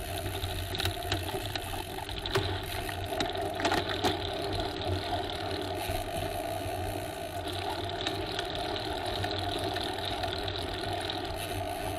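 A bicycle being ridden: a steady rolling rumble with scattered mechanical clicks and rattles, a few sharper ones between about two and four seconds in.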